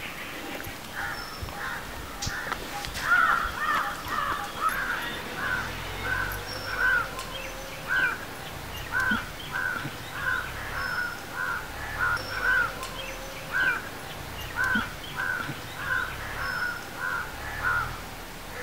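Crows cawing over and over, a long series of short caws about one or two a second.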